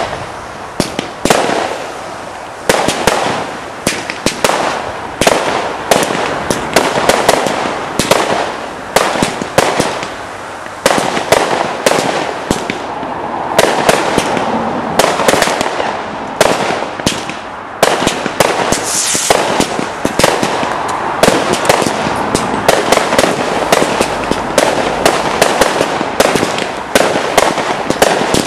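Category 2 and 3 consumer fireworks going off in quick succession at a display: a dense run of sharp bangs from launches and aerial bursts, several a second, with no pause.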